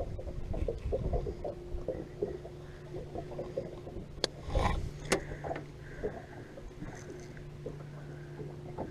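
Handling noise on a boat: scattered small knocks and clicks, with two sharp clicks a little after the middle. A low steady hum starts about two seconds in and runs until near the end.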